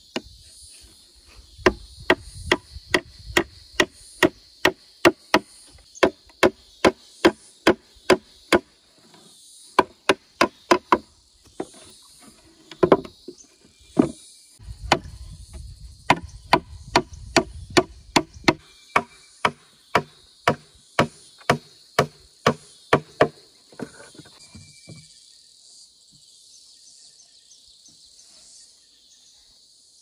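Nails being driven into a wooden box of thin boards with the back of a heavy machete used as a hammer: sharp, even knocks about two a second, in runs with short pauses, stopping about 25 seconds in. A steady high chorus of insects shrills behind.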